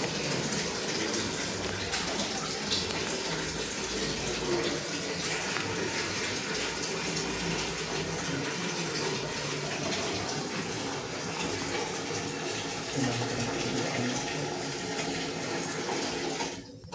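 Water running steadily, as from a tap filling a tub or bucket, cutting off near the end.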